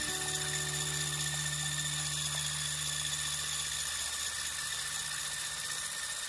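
Electric hand mixer with a wire whisk beating egg whites and granulated sugar for meringue in a glass bowl: a steady high motor whine.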